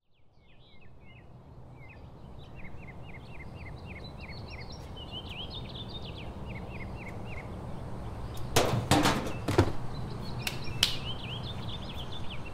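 Small birds chirp in quick repeated runs over a steady low hum. About two-thirds through comes a short burst of clattering knocks, then a single knock.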